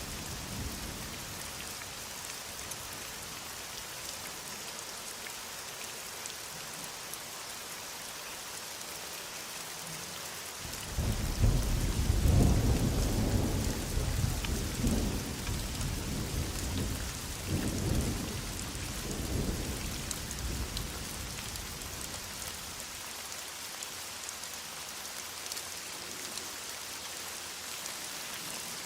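Steady heavy rain hissing, with a roll of thunder rumbling in about a third of the way through. The thunder swells in several waves and then fades back into the rain.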